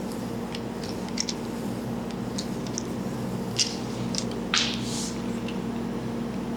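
Hands working over a head in a massage: scattered soft rubs and small clicks, with a brief hiss about four and a half seconds in, over a steady low hum.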